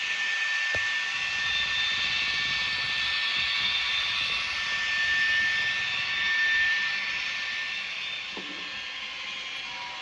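Zimo sound decoder in a TT-scale BR 131 'Ludmilla' model playing its diesel locomotive sound through the model's small loudspeaker: a steady engine hiss with a high whistling turbo-like tone, swelling a little about two-thirds through.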